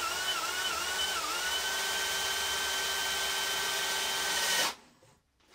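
DeWalt DCD999 cordless drill's brushless motor driving a 12 x 400 mm fully threaded screw into stacked timber. It is a steady whine that wavers in pitch for the first second or so, then holds level and cuts off abruptly near the end.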